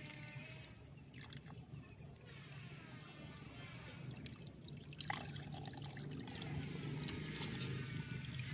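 A hand splashing and stirring shallow rice-field water against a mud bank, with water running; it grows louder toward the end.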